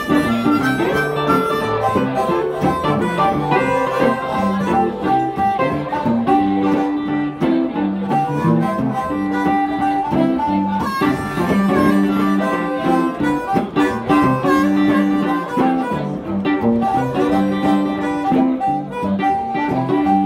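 Live electric blues: a harmonica played through a handheld microphone, wailing held notes over two hollow-body electric guitars playing a repeating riff.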